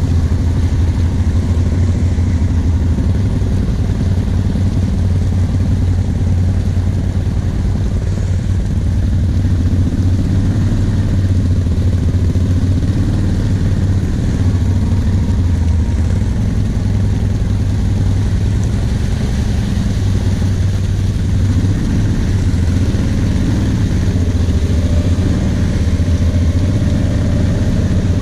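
ATV engines running steadily at low revs: a quad idling close by, with another quad's engine as it wades slowly through deep muddy water. There is a strong, even low hum with no revving.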